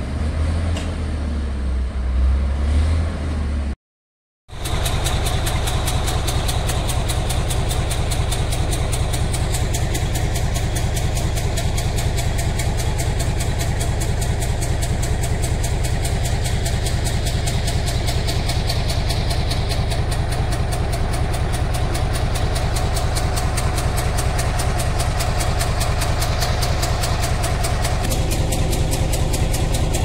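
Caterpillar crawler bulldozer's diesel engine running with a deep, uneven low sound as it works in mud. A short dropout to silence comes about four seconds in, after which a heavy diesel engine runs steadily at one speed.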